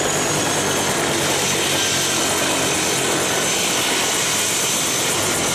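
Helicopter running on the ground with its rotors turning: a steady, loud turbine and rotor noise, with a high turbine whine that slowly falls in pitch.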